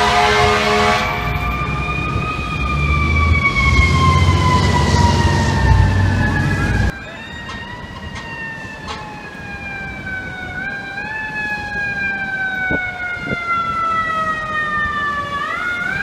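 FDNY ladder truck siren wailing slowly up and down over the truck's engine rumble, with an air horn blast that ends about a second in. About seven seconds in, the sound cuts abruptly to a quieter emergency siren, still wailing slowly up and down.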